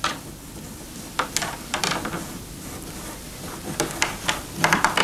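Soaked willow rods rubbing and crackling as they are twisted together and drawn through the wicker weave of a basket border: scattered short crackles and rustles, a few more close together near the end.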